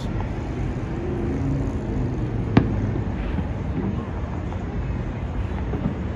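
Distant fireworks popping over a steady low rumble of the city, with one sharp bang about two and a half seconds in.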